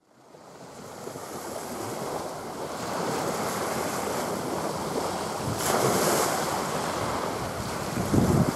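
Wind buffeting the microphone over waves washing on the beach, fading in over the first couple of seconds. Heavier gusts rumble on the microphone near the end.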